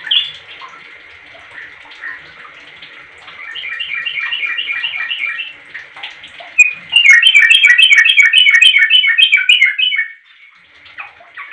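Yellow-vented bulbul (trucuk) singing in bubbly phrases of rapid, evenly repeated chirps: a phrase ending right at the start, a softer one about three seconds in, and a louder, longer one from about six and a half to ten seconds.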